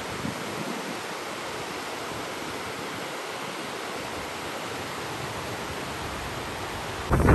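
Shallow rocky river rushing over rapids: a steady, even wash of water noise. Right at the end, wind starts buffeting the microphone loudly.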